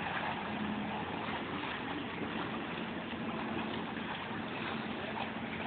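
Steady hum of a passenger boat's engine running, under a constant wash of harbour noise.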